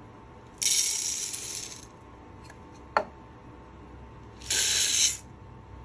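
Green coffee beans poured into the hopper of a Roast Rite RM-800 moisture and density meter, a rushing rattle lasting about a second. A single sharp click about three seconds in, then a second, shorter rush of beans as the hopper empties into the meter's measuring cell.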